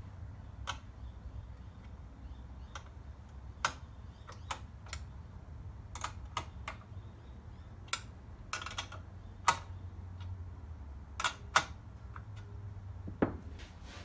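Irregular sharp metallic clicks and taps from a spanner and other hand tools on a cylinder mower's chain-drive sprocket mount while the chain is being tensioned, over a low steady hum.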